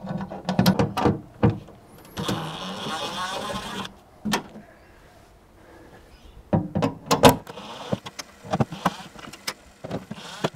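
A handheld power driver whirs for about two seconds, backing out the screws of the tailgate's cover plates. Around it come sharp clicks and knocks as the plates and tailgate panel are handled.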